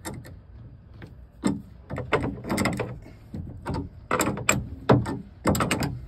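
Steel wrench clinking and clanking against a square-headed bronze pipe plug on a bronze tee fitting as it is set on the plug to loosen it. A series of sharp metallic clicks, several in quick clusters.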